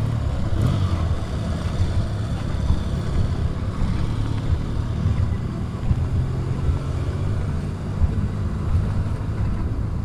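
Outdoor seaside ambience: a steady, uneven low rumble of road traffic mixed with wind on the microphone, with no single event standing out.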